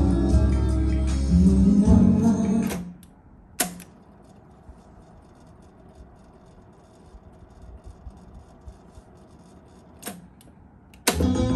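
Music playing from a TEAC A-630 cassette deck stops suddenly about three seconds in, followed by a sharp click of a transport key. Several seconds of low hiss with faint ticks follow, then another click, and the music starts again about a second later.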